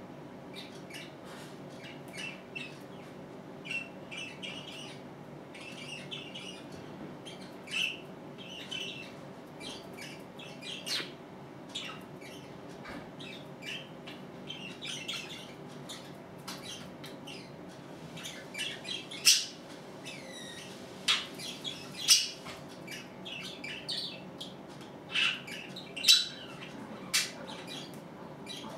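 Budgerigar chattering in short clicks, chirps and squawks. The calls are sparse at first, then come thicker and louder in the second half, with several sharp squawks. A steady low hum runs underneath.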